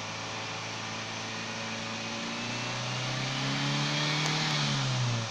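Toyota Avanza engine running, heard at its tailpipe. It is revved up from a steady idle about halfway through, held high, then starts easing back near the end.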